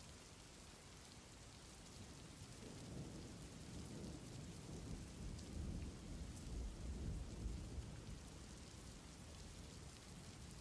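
Faint steady rain with a low rumble of thunder that builds through the middle and dies away.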